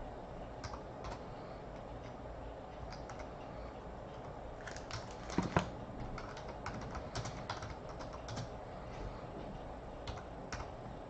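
Typing on a computer keyboard: a few scattered keystrokes, then a quicker run of keys from about four seconds in, with a couple of louder key strikes near the middle.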